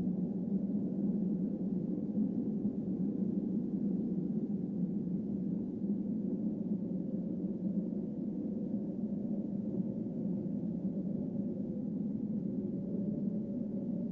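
A steady low, humming drone with a couple of held pitches and no breaks or strikes.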